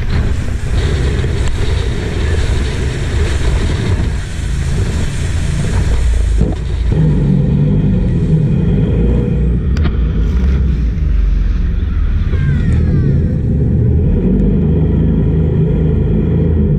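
Jet boat's engine running steadily, loud and deep.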